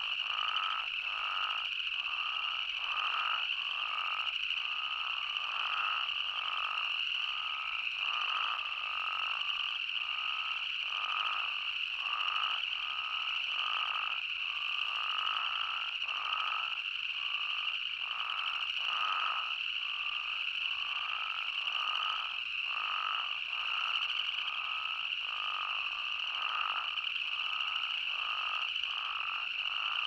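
Chorus of spadefoot toads calling, short calls overlapping and repeating about twice a second over a steady high-pitched drone.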